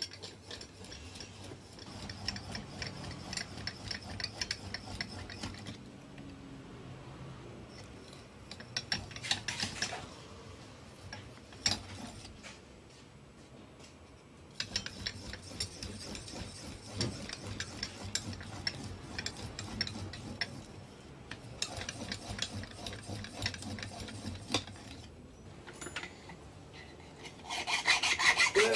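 Small hand drill boring holes through a sterling silver plate, making rapid rasping scrapes in runs of a few seconds with short pauses between; these are the holes for threading a fret-saw blade. Near the end a louder run of strokes starts.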